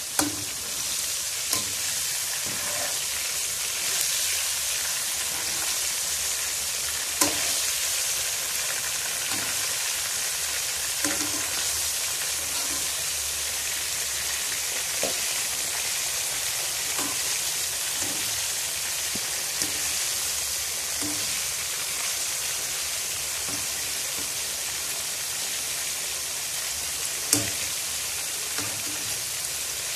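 Rice- and corn-flour-coated chicken pieces deep-frying in hot oil in a wok: a steady crackling sizzle. A few sharp clinks come as a wire spider strainer knocks against the wok while the pieces are turned, the loudest about 7 and 27 seconds in.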